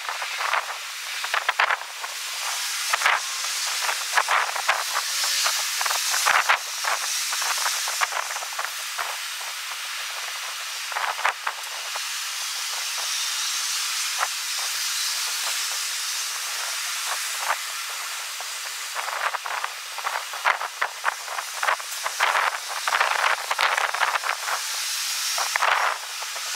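Strong wind buffeting the microphone, heard as a high hiss broken by rapid crackles. It is gustier and crackly for the first several seconds and again from about two-thirds of the way in, smoother in between.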